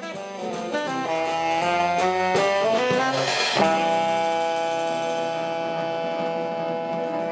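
Small jazz band playing, with horns moving through a quick run of notes, then a crash about three and a half seconds in and a long held chord.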